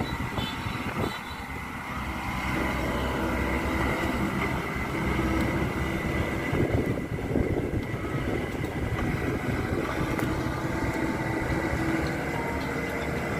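Kubota DC-93 Extra combine harvester running steadily: a low engine drone with a constant high whine over it.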